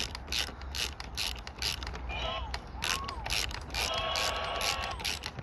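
Socket ratchet on a long extension clicking rapidly in a fast, even run of ticks as a bolt on a motorcycle's front fairing bracket is worked loose. A couple of high squeal-like tones sound about two and four seconds in.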